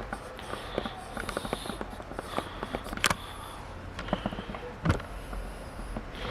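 Scattered small clicks and knocks of things being handled, with two louder knocks about three and five seconds in.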